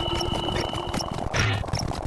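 A dense jumble of overlapping short sound effects: rapid clicks, a held high tone that stops about a second and a quarter in, and a brief hissy burst soon after.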